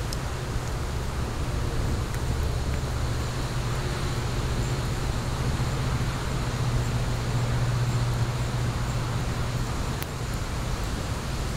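Fire burning in a fire pit: a steady low rumble that swells for a few seconds past the middle, with a faint crackle or two.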